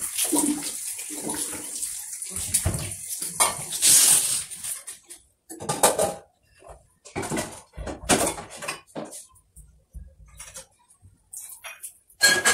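Water running into a bathroom sink and splashing, steady for the first four or five seconds, then giving way to scattered short splashes and knocks with quiet gaps between them.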